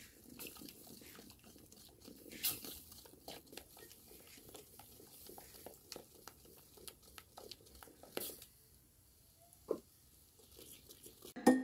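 Wooden spoon stirring a thick cassava and coconut-milk mixture in an aluminium pot: faint scraping and small knocks against the pot, with a few louder knocks.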